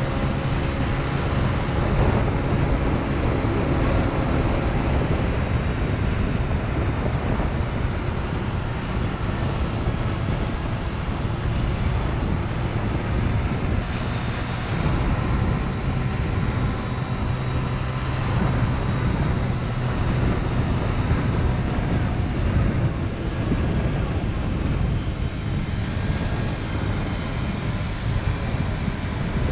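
Motor scooter engine running under way, with wind noise on the microphone. The engine's pitch sags slightly over the first few seconds, then holds steady.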